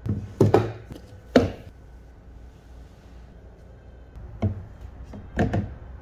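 Snap-lock latches of a plastic food-storage box unclipped: four sharp clicks in the first second and a half. Near the end come two duller knocks as a metal part is handled in the plastic box.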